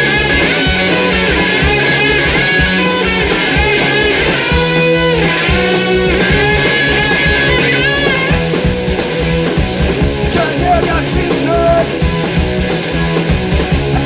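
Rock band recording playing: electric guitars over a steady drum beat, loud and without a break.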